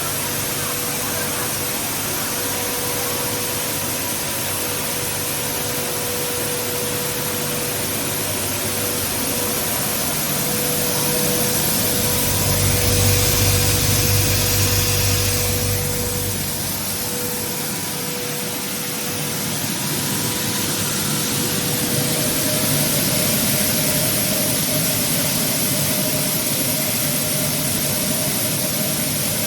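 Electric stone grain mill running: a steady mechanical whir and noise with a constant hum, swelling louder with a deeper rumble for a few seconds around the middle.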